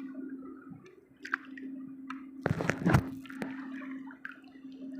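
Water splashing and dripping as a caught fish is released back into the water, with the loudest splash about two and a half to three seconds in. A faint steady low hum runs underneath.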